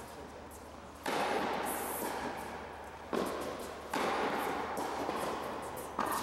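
Tennis racket strikes on the ball during serves, four sharp hits each followed by a long echo off the walls of an indoor tennis hall.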